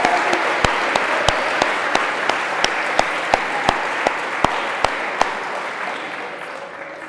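Audience applauding, with one set of loud, sharp claps close by at about three a second standing out until about five seconds in. The applause then dies away.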